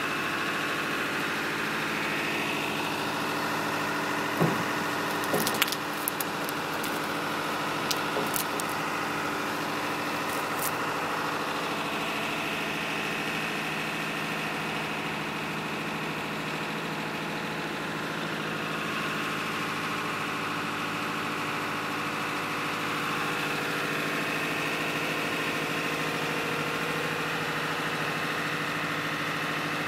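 An engine running steadily at idle, a constant hum with several steady tones. A few short sharp knocks come about five seconds in and again near eight seconds.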